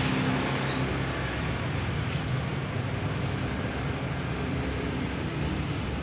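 A steady low mechanical hum over an even rushing noise, unchanging throughout.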